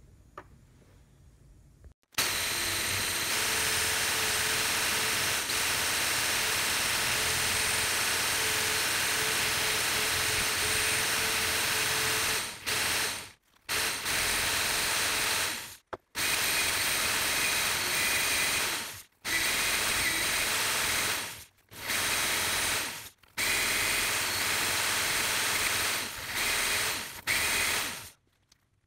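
Wire cup brush spinning in a power drill, scrubbing rust off the crosscut saw's handle bolts and nuts with a steady hiss. It starts abruptly about two seconds in and cuts out suddenly several times.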